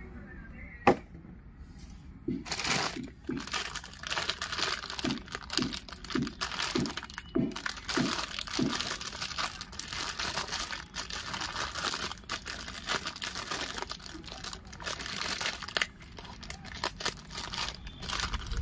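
Clear plastic bag crinkling and rustling as it is handled and pulled open around a toy tractor. A single sharp click comes about a second in, and the crinkling runs on without a break from a couple of seconds in.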